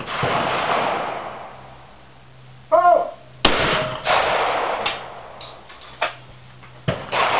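Shotgun shots at a clay trap shooting line: one at the start and a loud one about three and a half seconds in, each trailing off over a second or so. A short shout, the call for the clay, comes just before the second shot, and fainter reports from other shooters follow near the end.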